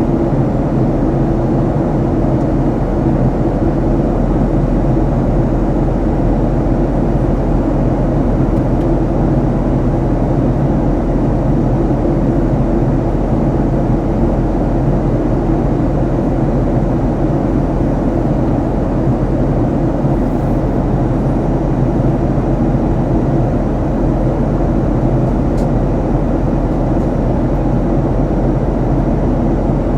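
Steady, loud cabin noise of a Boeing 737 MAX in flight: a constant rush of engine and airflow with a low hum, heard from inside the passenger cabin.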